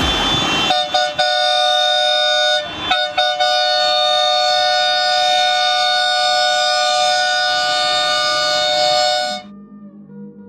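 Air horns sounding together in a steady, loud chord, broken by a few brief gaps in the first three seconds and cutting off suddenly near the end.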